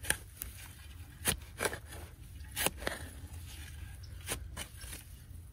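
A spade cutting and scraping into soil as a planting hole is dug: about seven short, irregular scrapes and chops.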